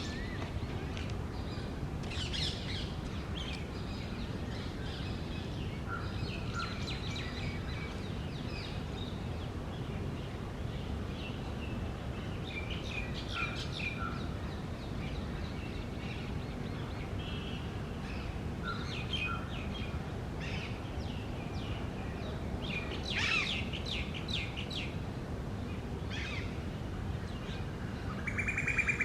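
Birds calling and chirping in scattered short bursts, loudest in a cluster near the end, over a steady low background rumble of outdoor noise.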